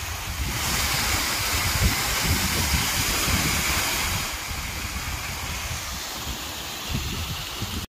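Steady rushing hiss of a small waterfall cascading over a rock ledge into a pool. It grows louder about half a second in and eases off around four seconds in, with wind buffeting the microphone underneath.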